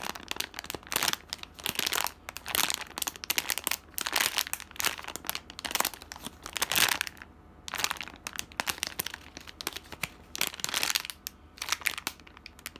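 Plastic packaging bag of a squishy toy crinkling as hands handle and squeeze it, in irregular bursts of rustling with short pauses, the longest about seven seconds in.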